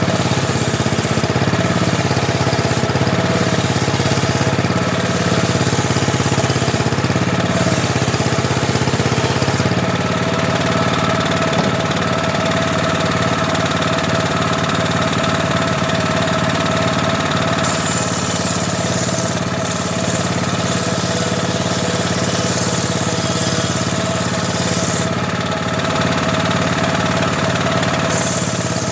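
Homemade table saw running steadily, its motor giving an even drone. A brighter, higher hiss comes in for several seconds past the middle as the blade cuts through teak.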